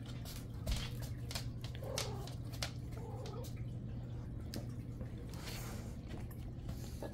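Calico cat meowing briefly twice, short low calls about two and three seconds in, among scattered light clicks and taps over a steady low hum.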